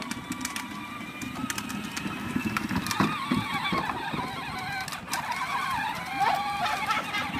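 Battery-powered John Deere Gator ride-on toy's electric drive running with a steady whine, its pitch wavering at times as it moves and turns.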